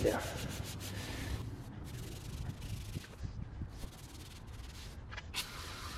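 A wool wheel brush scrubbing inside the barrel and between the spokes of an alloy wheel wet with wheel cleaner. It makes quick, even strokes for about the first second and a half, then rubs more softly, with a brief louder swish near the end.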